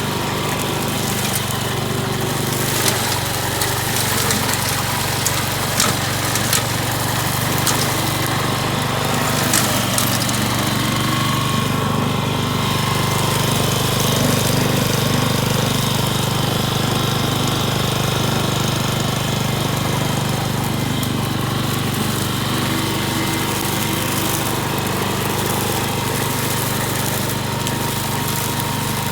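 Kaaz LA820 self-propelled walk-behind mower's small engine running steadily on a test run, with scattered sharp clicks over the first third and a slight rise in level about halfway through.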